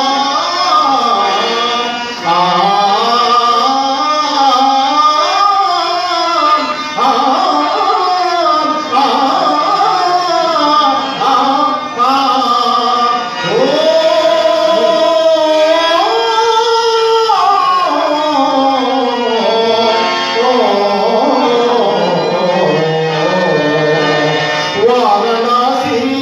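A man singing a song into a handheld microphone, amplified through a hall sound system; the melody glides and wavers, with long held notes around the middle.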